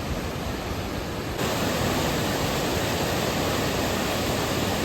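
Steady rushing noise of the hill train running, with no pitch or rhythm, that jumps suddenly louder about a second and a half in.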